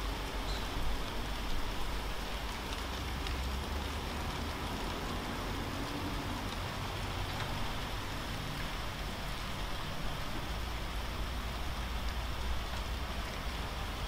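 Rain shower falling steadily, an even hiss with a low rumble underneath.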